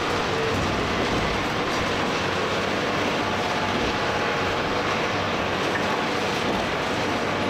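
Komatsu PC490 heavy-duty excavator working: its diesel engine runs steadily under load, with a faint steady hydraulic whine over it.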